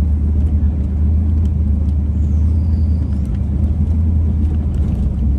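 Steady low rumble of a vehicle driving slowly over a rough dirt track, heard inside the cab, with a few faint ticks and rattles.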